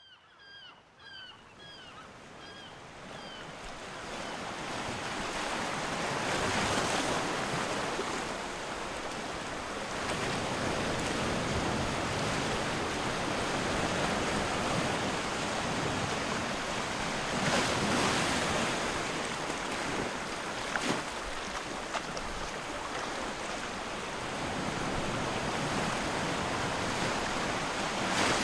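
Sea surf washing onto a beach, a steady rushing that fades in over the first few seconds and swells as waves break about every ten seconds. A short run of repeated high chirps sounds at the very start.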